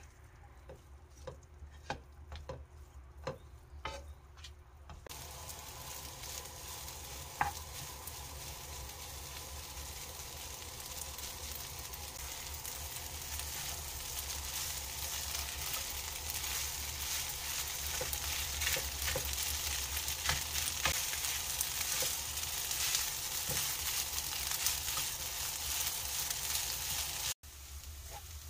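Fried rice being stir-fried in a non-stick pan, the wooden spatula scraping and tapping against the pan. For the first few seconds there are only separate taps. About five seconds in a steady sizzle starts and grows louder under the stirring, then cuts off abruptly near the end.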